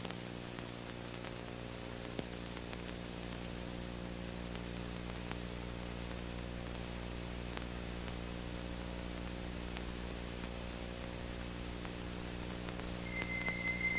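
Steady electrical hum with a stack of overtones under an even hiss, from the unrecorded gap on a VHS tape playback. A faint high steady tone comes in near the end.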